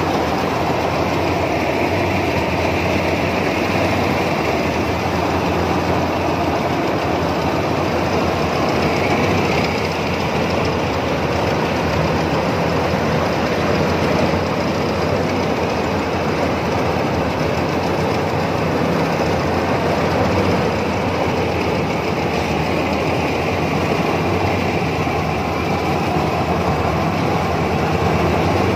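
Iseki HC80P rice combine harvester running steadily at close range while it cuts and threshes rice: a continuous engine drone with low humming tones under the even noise of the working machinery.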